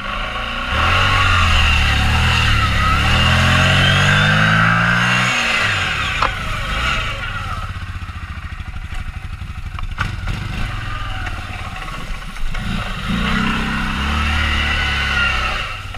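Quad bike (ATV) engine revving hard under load offroad, its pitch climbing for about four seconds before it drops away; after a quieter stretch it revs up again for a couple of seconds near the end.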